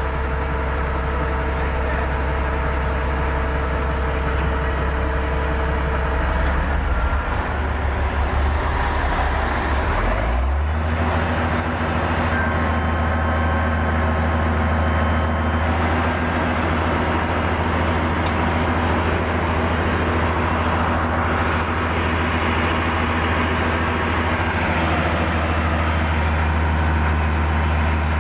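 Heavy diesel earth-moving machinery running steadily under load. About ten seconds in, the engine note steps up and holds at the higher pitch, as when the engine is throttled up.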